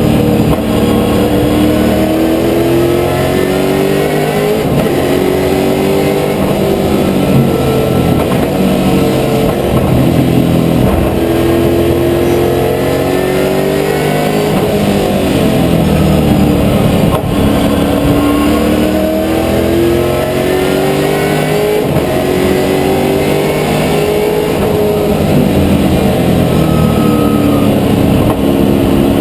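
Holden Commodore VZ V8 Supercar's V8 engine at racing speed, heard from inside the cockpit. The revs climb repeatedly through the gears and fall back under braking for corners.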